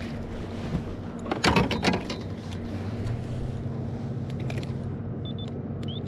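A cluster of knocks and clatter about a second and a half in as a bass is landed and handled with the net on the kayak. Under it a steady low electric hum from the kayak's trolling motor grows stronger about halfway through.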